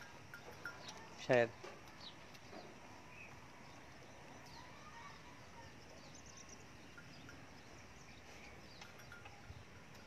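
Water buffalo being milked by hand: faint, irregular squirts of milk into a metal pail. A single spoken word comes about a second in.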